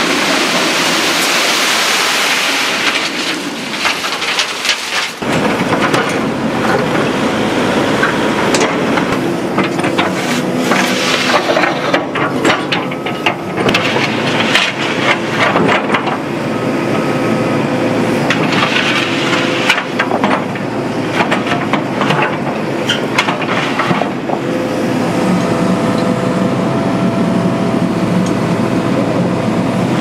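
Construction machinery working: an engine runs under a rushing hiss for the first few seconds, then many knocks and clatters sound over it.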